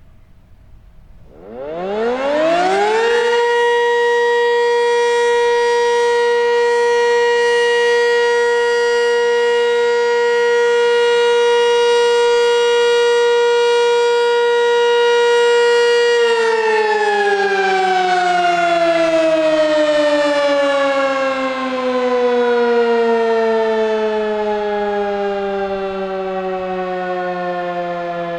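Sentry 20V2T two-tone outdoor warning siren on 480 volts sounding a short test alert. It winds up very quickly about a second in, holds a steady, very loud tone for about 13 seconds, then shuts off and winds down, its pitch falling slowly.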